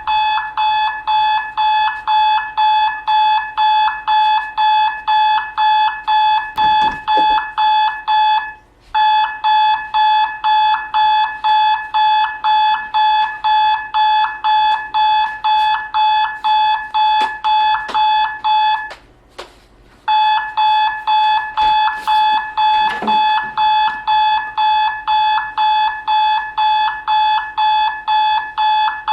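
Electronic alarm clock beeping, a high steady tone pulsing about twice a second and going on insistently, with two short pauses, about a third and two-thirds of the way through.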